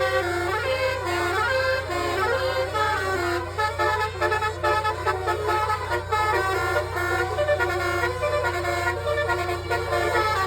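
Basuri (telolet) multi-tone air horns playing a melody, several horn pitches sounding together and changing in steps, with some notes sliding between pitches about two seconds in. A steady low hum runs underneath.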